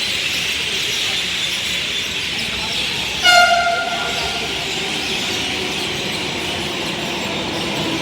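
Metro train horn sounding once, a short toot about three seconds in, over a steady high-pitched background hiss.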